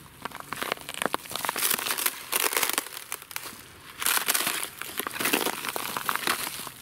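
Footsteps crunching through dry fallen leaves, grass and patches of frozen snow and ice, an irregular crackling that comes in two stretches of walking.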